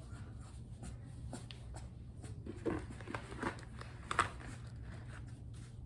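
Soft handling noises: a few light knocks and rustles, clustered in the middle, the loudest about four seconds in, over a steady low hum.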